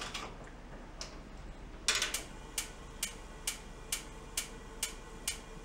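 Hardwick gas range's stovetop spark igniter clicking repeatedly, about twice a second from about two seconds in, while the burner fails to light: it sparks but the gas won't ignite.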